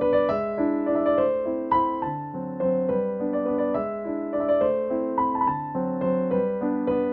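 Background piano music: single notes struck one after another over lower held notes.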